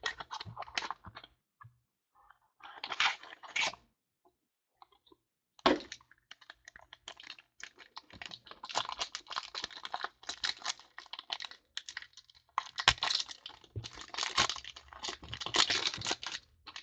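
Trading-card mini boxes being opened and the cards handled: a run of clicks, tearing and crinkling of cardboard and card sleeves, with one sharp knock about five and a half seconds in and busier rustling in the second half.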